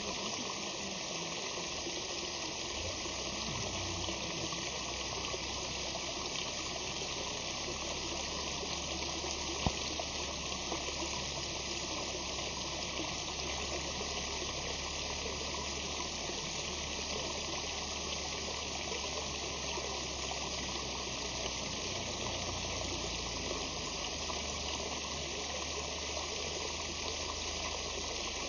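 Small natural waterfall: water falling and splashing steadily, with one brief click about a third of the way through.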